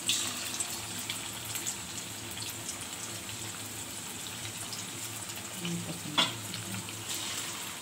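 Marinated chicken pieces deep-frying in hot oil in an aluminium wok: a steady sizzle full of small crackling spatters. It swells briefly at the start as another piece is dropped into the oil, and there is one sharp click about six seconds in.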